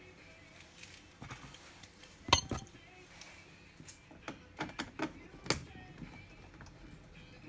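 A string of sharp clicks and clinks, small hard parts being handled or knocked together, with one louder double knock a couple of seconds in and a quick run of lighter clicks after it.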